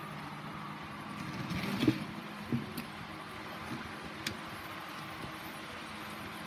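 Faint steady hum of an N-scale model steam locomotive's small electric motor under power from the controller. The locomotive only half runs, straining but not moving properly. A few knocks and clicks come around two seconds in, the loudest at about two seconds.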